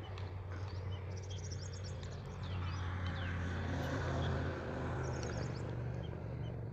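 Background ambience: a steady low hum, like a vehicle engine, that grows louder through the middle and fades again, with short high chirps now and then.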